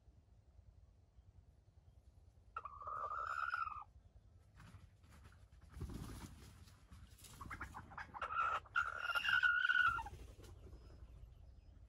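Red junglefowl rooster crowing twice: a short crow about three seconds in and a longer one near the end, with a brief rustle between them.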